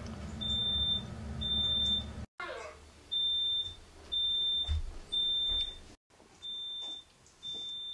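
Smoke alarm sounding: a single high-pitched beep repeated about once a second, the last two beeps fainter.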